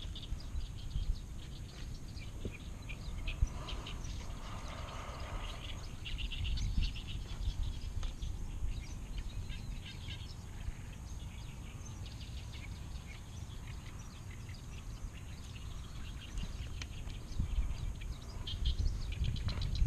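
Small birds chirping in many quick, short calls, over a steady low rumble.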